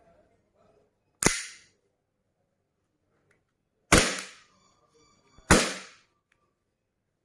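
Umarex Glock 17 blowback air pistol firing three shots, the first alone and the last two about a second and a half apart, each a sharp crack with a short tail. A faint ringing follows the second shot.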